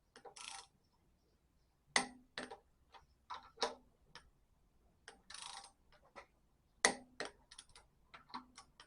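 Torque wrench tightening the connecting rod cap bolts to 28 foot-pounds: short rasps of the ratchet being wound back, then sharp metallic clicks, the two loudest about 2 and 7 seconds in, where the wrench reaches its setting.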